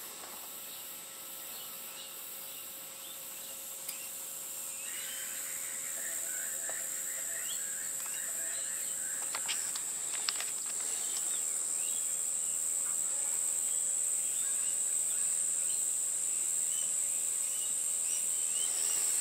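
Insects trilling steadily on one high, even pitch, slowly getting louder, with bird chirps from about five seconds in and a few light clicks around ten seconds in.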